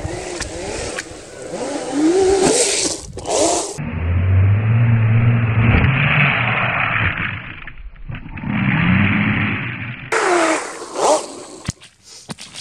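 Brushless electric motor of a 1/5-scale RC snowmobile whining up and down in pitch as it races over snow and ice, with its track scraping. For about six seconds in the middle the sound turns dull and deep, a low steady drone, while the sled hits a hole in the ice and throws up snow; then the whine returns briefly, falling, followed by light crunches.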